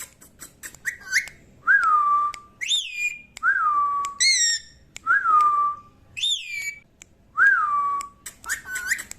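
A pet parrot whistling a repeated phrase: higher rising-and-falling whistles alternate with a lower note that dips and then holds, about four times over, with short clicks in between.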